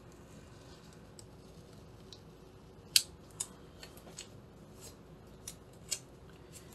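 Faint handling of paper stickers and sticker sheets: scattered sharp little clicks and crinkles, the loudest about three seconds in.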